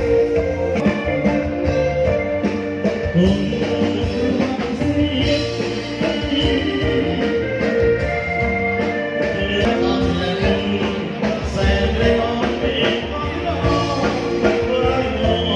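Loud dance music played for the reception dancing: a singer over a steady beat and instruments.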